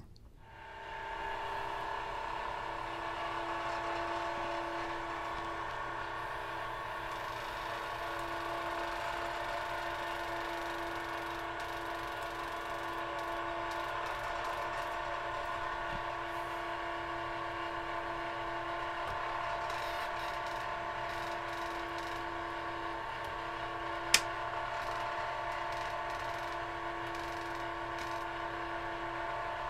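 Home-built generator running with a steady hum made of several held tones. It builds up over the first couple of seconds and then holds level. One sharp snap comes near the end.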